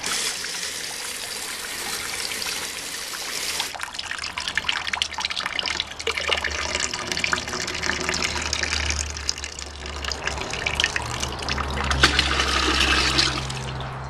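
Homemade custom toilet flushing, with water rushing strongly through the bowl for the first few seconds and then running on more weakly. A low steady hum comes in about halfway through.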